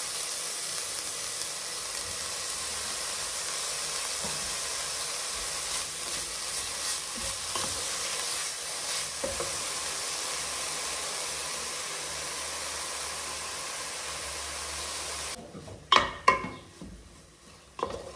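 Shredded chicken sizzling as it is added to hot fried onion in a pot and stirred with a wooden spoon, a steady frying hiss. Near the end the sizzle cuts off abruptly and a few sharp knocks follow.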